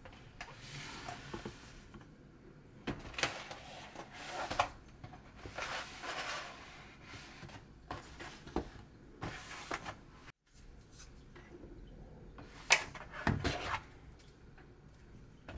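Boxes and bottles being set down one by one on a kitchen countertop, a series of separate knocks, with rustling of plastic and cardboard packaging in between as groceries are unpacked.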